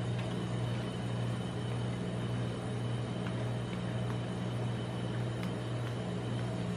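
Steady low hum of a rolled-ice-cream machine's refrigeration unit chilling the metal cold plate, with faint scraping as a brush is drawn over the frozen ice cream sheet.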